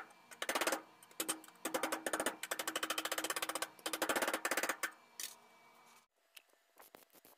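Hand hammer striking a steel sheet-metal strip clamped in a vise, in quick runs of rapid metallic taps, bending the strip into shape. The hammering comes in four or five bursts and stops about six seconds in.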